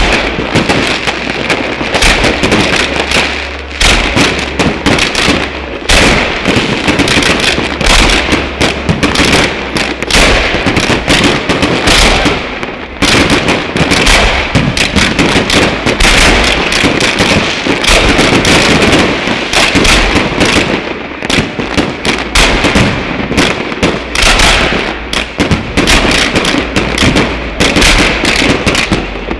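Fireworks going off in a dense, unbroken barrage of loud bangs and pops, many every second.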